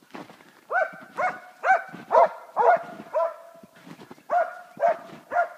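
Dog barking over and over at a red deer it is facing, about two barks a second, with a short pause a little past the middle.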